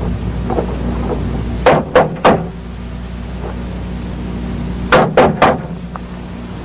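Knocking on a door: three quick knocks, then another three about three seconds later, over a low steady hum.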